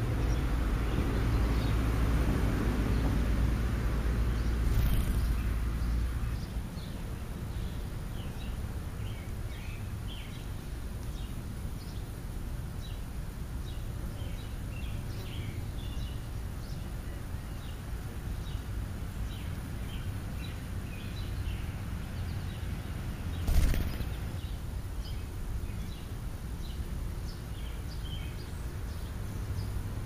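Outdoor ambience with many short bird chirps scattered throughout, from the starlings and sparrows feeding. A low rumble runs under the first six seconds and stops, and a single sharp knock comes about three-quarters of the way through.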